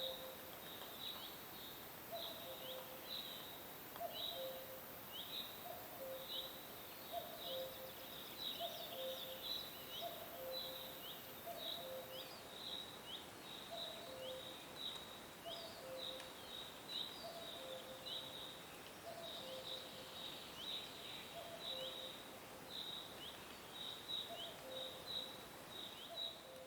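Nature ambience: many short, high chirps overlapping in a steady chorus, with a lower two-note call repeating about once a second.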